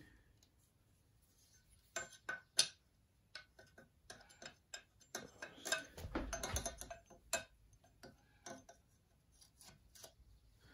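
Light metal clicks and small scrapes as a replacement chainsaw bar nose tip is handled and slid into the slotted end of the bar on a wooden bench; a few isolated clicks, then a busier cluster of clicks and rubbing a little past the middle.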